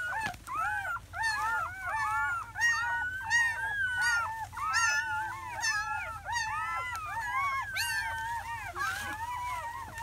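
A litter of newborn German Shepherd puppies, only hours old, crying and squealing together: many short high cries that rise and fall in pitch, overlapping without a break.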